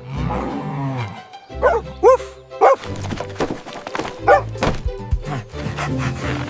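Cartoon dog barks and yips, a few short calls spread over the first few seconds, over background music, with a couple of thuds around the middle.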